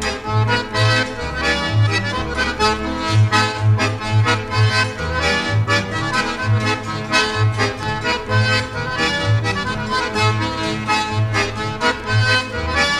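Recorded polka led by an accordion with a small band behind it, over a steady, regular bass beat.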